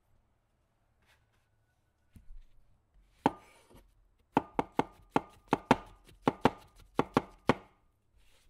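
Chef's knife slicing white button mushrooms on a wooden cutting board. There is one knock about three seconds in, then a quick run of about fourteen sharp taps of the blade on the board, four or five a second.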